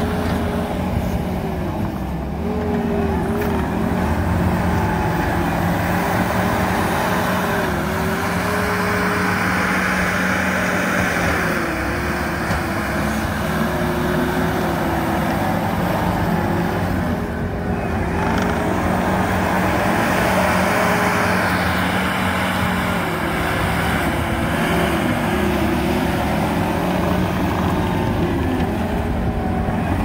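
Case TV450 compact track loader's diesel engine running at working speed while it grades dirt. Its whine dips briefly in pitch again and again as the machine works.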